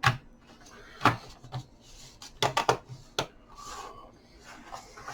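Plastic bottom cover of an HP 14-cf0013dx laptop being set onto the chassis and handled: a series of sharp plastic clicks and knocks, with a quick cluster of them about two and a half seconds in.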